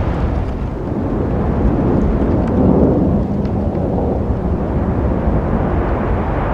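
Road traffic noise: a steady rumble of cars and engines, swelling as a vehicle passes close and loudest about three seconds in.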